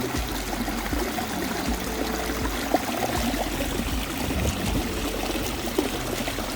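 Steady rush of running water from a small stream, with one sharp click a little before the middle.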